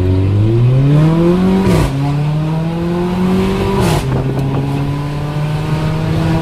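Mercedes-AMG GLA 45's turbocharged four-cylinder with an aftermarket exhaust accelerating hard through the gears. The engine pitch climbs, drops with a sharp crack at an upshift just under two seconds in, climbs again, cracks at a second upshift about four seconds in, then holds nearly steady.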